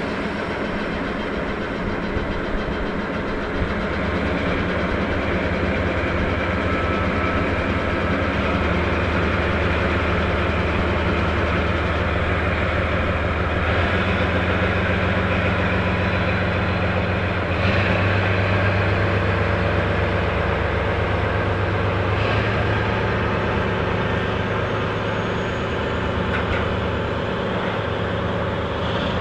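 KE65 diesel locomotive engine running steadily at low revs, its note stepping up a little about halfway through.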